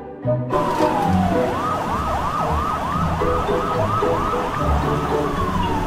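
Police car siren starting about half a second in: a falling wail, then a fast yelp of about three sweeps a second, then another falling wail near the end.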